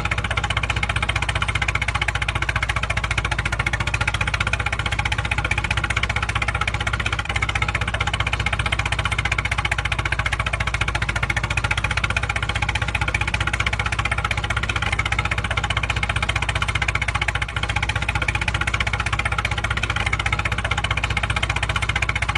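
Tractor engine running steadily, with a fast, even chugging beat.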